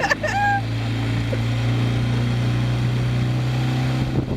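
Small boat's engine running steadily under way, a constant low hum that holds the same pitch throughout.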